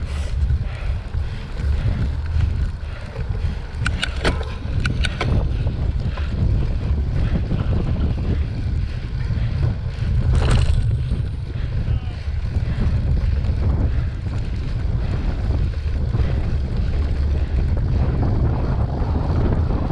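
Wind buffeting the microphone of a camera on a cyclocross bike riding over grass: a steady low rumble. A few short clicks come about four to five seconds in, and a louder knock about ten seconds in, as the bike goes over the rough ground.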